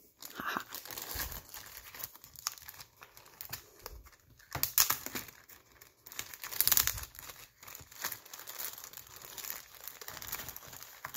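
Plastic pet-food bags crinkling and rustling as they are handled, in irregular bursts, with the loudest crinkles about five and seven seconds in.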